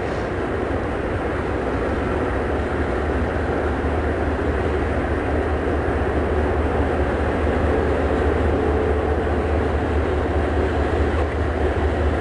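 A train rumbling steadily, growing slightly louder.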